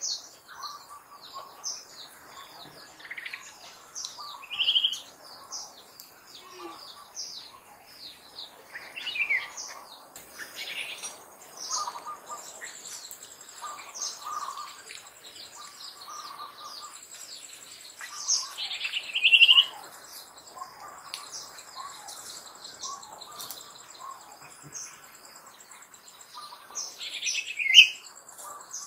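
Birds chirping and calling in the open, many short high chirps with a few louder calls that drop in pitch. A high, steady insect trill joins about halfway through.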